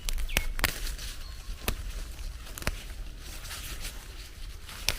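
A handful of sharp clicks and snaps, spaced irregularly about a second apart, over a low steady rumble and faint rustling: handling and footstep noise while wild plants are picked.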